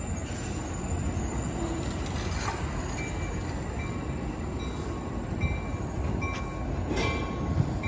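Amtrak California bi-level passenger cars and cab car rolling past and pulling away, with a steady wheel-on-rail rumble. Brief faint squealing tones from the wheels come in from about three seconds on, with a couple of faint clicks.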